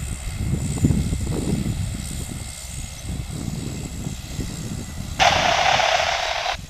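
Cessna Grand Caravan's PT6A turboprop running on the landing roll, heard as a low, uneven rumble. About five seconds in, a burst of radio static from an air-band radio switches on sharply and cuts off a second and a half later.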